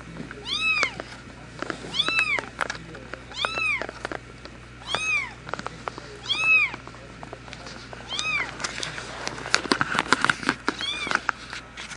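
Newborn kitten mewing: short, high-pitched cries that rise and fall, about one every second and a half, six or so in all. Rustling and handling noise takes over near the end.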